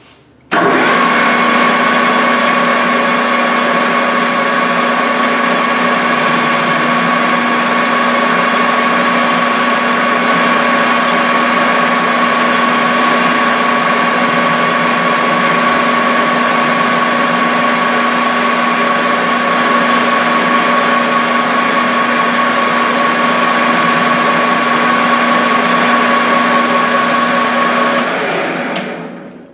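Metal lathe switched on about half a second in, its motor and drive running steadily with a hum and a high whine while it spins a stainless steel rod in its chuck to face off the end. Near the end it is switched off and winds down.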